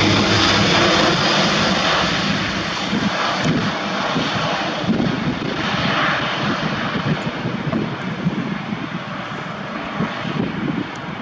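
Airbus A400M's four Europrop TP400 turboprops with eight-bladed propellers, droning as the transport climbs away after takeoff. The sound is loud and rumbling, and fades gradually as the aircraft recedes.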